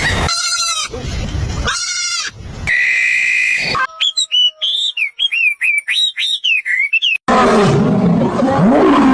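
A rapid series of different animal calls spliced together: short loud cries at first, a run of quick high whistled chirps like birdsong in the middle, then from about seven seconds in a dense, low, continuous roaring typical of a big cat such as a lion.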